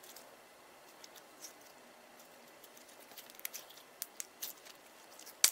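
Purple jelly slime from inside a squishy octopus toy squelching faintly as fingers squeeze and knead it. Small wet clicks come more often from about three seconds in, with a sharper one near the end.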